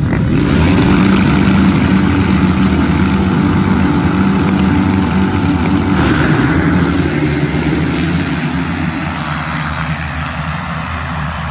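A full start gate of motocross bikes revving together at the line, then launching at once about halfway through with a surge of engine noise and flying dirt. The massed engine sound fades as the pack pulls away near the end.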